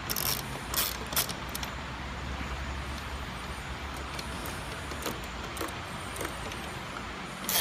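Scattered metallic clicks and clinks from a hand socket driver on an extension as it turns and seats the bolts on the side of a motorcycle radio, a few in the first second and a louder one near the end, over a steady low hum.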